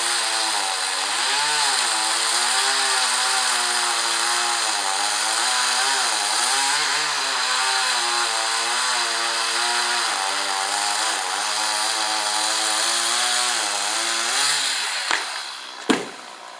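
Chainsaw cutting through a tree trunk, its engine pitch dipping and recovering again and again as it bogs under load, then stopping about fifteen seconds in. Two sharp knocks follow about a second apart, the second and louder as the felled trunk hits the ground.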